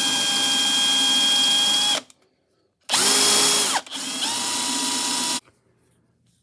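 A Bosch drill in plain drilling mode (hammer setting off) bores a hole into a broken-off statue head for a Tapcon screw. The motor whines steadily in one long run that stops about two seconds in. Two shorter runs follow, each spinning up with a rising whine, and the last stops about a second before the end.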